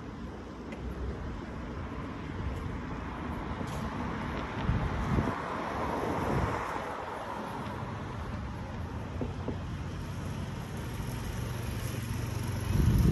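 A car passing on the road: tyre and engine noise swells to a peak about halfway through, then fades away. Low wind buffeting on the microphone comes in now and then.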